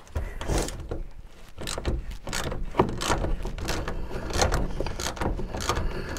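Irregular metallic clicks and knocks, a few each second, from a wrench working loose the rusty bolts on a van's sliding door.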